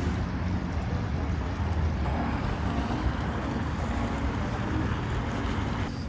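Steady rush of an outdoor fountain's water pouring over its basin rim, with a low rumble of wind on the microphone.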